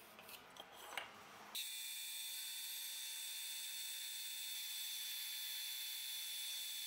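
A pen scratching lines onto a wooden block, then, from about one and a half seconds in, a band saw running steadily with a high whine and hiss as its blade cuts through the wooden knife-handle blank.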